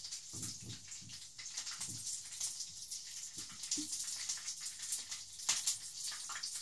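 Breaded chicken drumsticks frying in hot sunflower oil in a pan: a steady sizzle full of small crackles, with a sharper pop about five and a half seconds in. A few soft low thuds come in the first four seconds.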